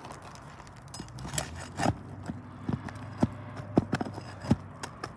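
Asphalt shingles being pried up with a flat tool worked under the tabs: a string of sharp, irregular clicks and knocks as the tool and shingles strike and snap.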